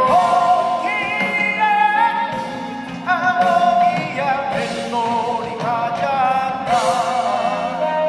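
Military band music with a sung melody; the held notes waver with vibrato.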